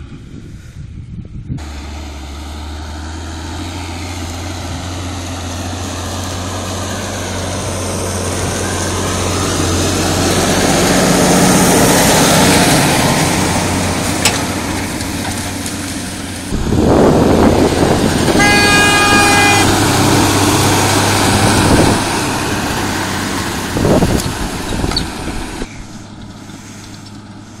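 Renault 155.54 tractor's turbocharged diesel engine working hard pulling a plough, swelling as it comes close and easing off again. A horn sounds once for about a second and a half about two-thirds of the way through.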